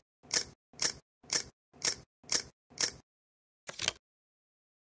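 Camera shutter clicking in quick succession, about two clicks a second for six clicks, then one more after a short pause.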